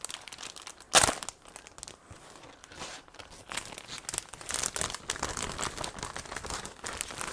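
Parcel packaging being torn and crinkled open by hand: irregular crackling and ripping, with one loud sharp rip about a second in.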